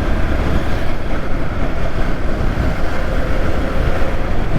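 Riding noise of a Yamaha R15 V3 motorcycle heard from a helmet-mounted GoPro: steady, loud wind rush on the microphone, with the 155 cc single-cylinder engine running at a steady pitch underneath.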